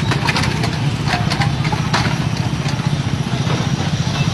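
A vehicle engine running with a steady low rumble, heard close by amid traffic, with scattered short clicks in the first couple of seconds.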